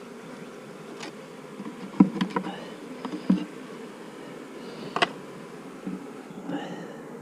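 Honeybees buzzing in a steady low hum around an open hive, with a few sharp clicks and knocks from handling the hive parts, the loudest about two seconds in and again near the middle.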